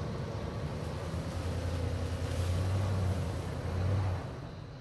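A motor vehicle's engine running under load as it pulls on a rope tied to an old engine block. Its steady low hum grows louder, then stops about four seconds in.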